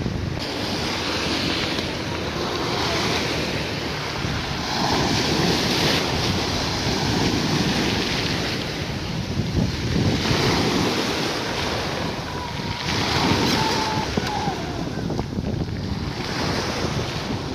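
Choppy sea waves breaking and washing up a pebble beach, surging about every two to three seconds, with wind buffeting the microphone.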